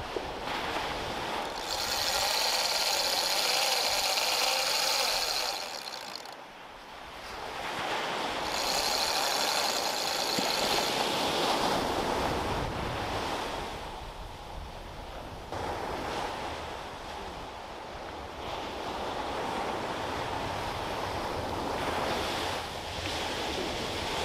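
Heavy conventional reel's drag running as a hooked shark pulls line off: a high buzzing whine in two spells of a few seconds each, starting again near the end. Surf washes underneath.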